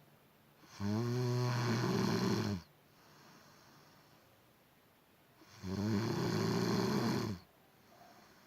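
Loud, regular snoring: two long snores of about two seconds each, one about a second in and one about two-thirds of the way through, with quiet breathing between.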